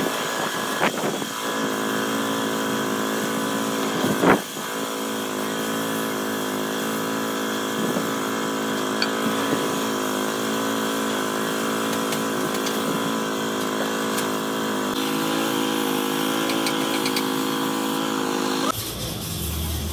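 Compressed-air paint spray gun hissing over the steady running of an air compressor, with a sharp knock a few seconds in. The steady sound cuts off abruptly near the end.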